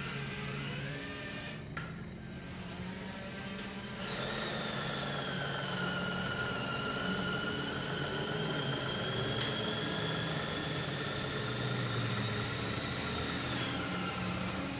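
LEGO Power Functions electric motors and their gear trains whining as they drive the model's scissor bridge up and open. The whine gets louder and steadier about four seconds in and drops in pitch near the end, with a single sharp click partway through.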